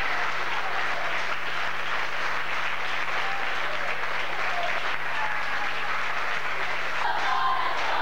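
A crowd clapping steadily, with voices calling out over the applause. The voices grow louder near the end.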